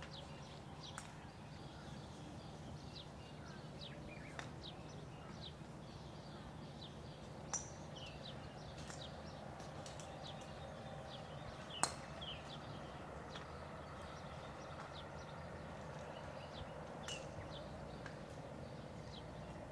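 Small birds chirping in short, scattered calls over a steady low background noise, with two brief clicks, the louder one a little past halfway.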